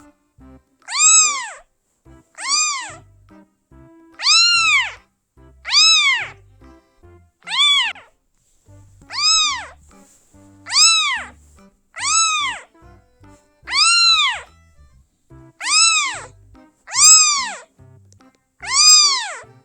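A kitten meowing over and over, about a dozen high-pitched meows roughly one every second and a half, each rising then falling in pitch.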